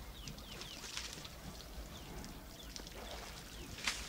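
African savanna elephants drinking and wading in a muddy pool: scattered water splashes and squelches, the sharpest one near the end. A bird's short falling chirps repeat over them.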